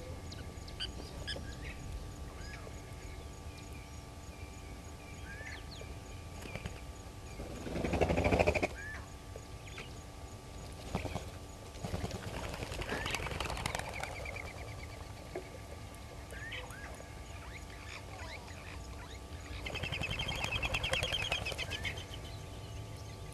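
Wild birds calling: scattered short chirps and whistles, a louder call about eight seconds in, and a fast trill near the end.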